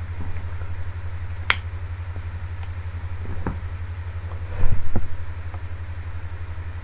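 Steady low electrical hum with a sharp click about a second and a half in, a couple of faint ticks, and a few louder low knocks around five seconds in.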